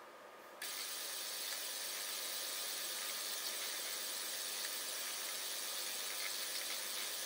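Steady hiss with a faint whir and a few light ticks from a kinetic sculpture's small motorised mechanism flicking feathers in and out of a box. The sound comes in suddenly about half a second in.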